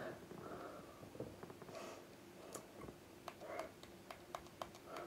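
Quiet room tone with a few faint, sharp clicks, most of them in the second half, and a few soft rustles.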